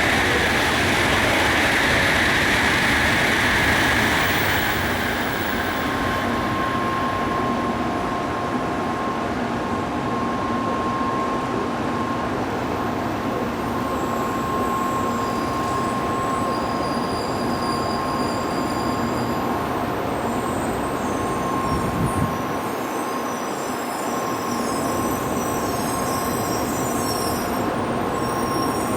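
Shinkansen 700 series train coming to a stop at a platform: a loud hiss of braking and wheel noise for the first few seconds fades out. A steady electrical hum with a high whine follows as the train stands at the platform.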